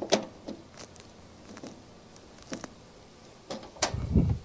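Scattered sharp clicks and light knocks of hands and parts being handled inside a metal electrical breaker panel, followed by a brief low rumble near the end.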